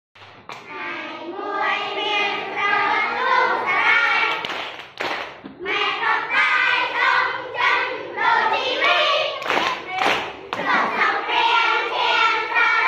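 A group of women and children singing a song together, with hand claps.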